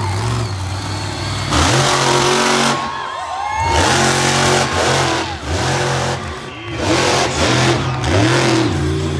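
Monster truck engine revving hard in repeated rising and falling bursts, about one a second, as the truck drives over a dirt jump.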